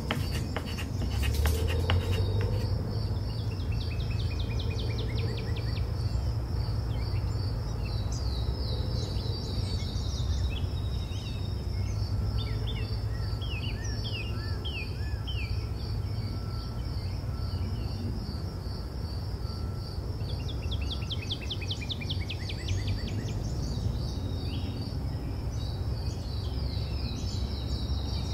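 Steady, evenly pulsed high insect chirring with groups of quick falling bird chirps now and then, over a low hum. A few sharp knife taps on a wooden cutting board near the start.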